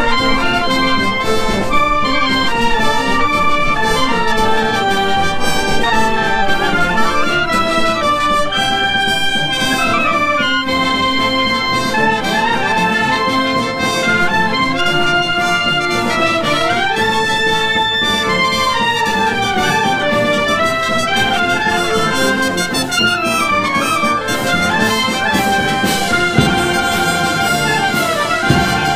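Italian wind band playing: clarinets and brass together in a steady, continuous piece, with quick scale runs up and down in the middle and again near the end.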